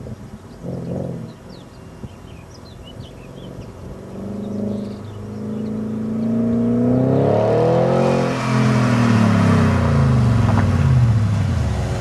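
BMW E38 740i's V8 engine running under acceleration. Its pitch rises to a peak about eight seconds in and then falls away steadily.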